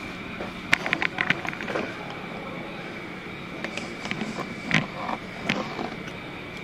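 Light clicks and knocks from handling things on a kitchen counter, with a quick run of clicks about a second in and a few more single ones around five seconds, over a steady room hum with a faint high whine.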